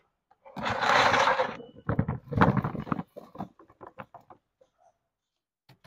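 A basketful of tomatoes tipped out of a wicker basket into a large plastic tub: a brief rustling rush, then a string of dull thuds as the tomatoes tumble in, thinning out and stopping.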